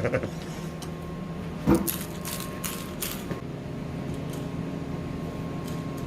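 Die grinder parts being pressed back together by hand: a sharp metallic click about a second and a half in, then a few short scraping strokes, over a steady low shop hum.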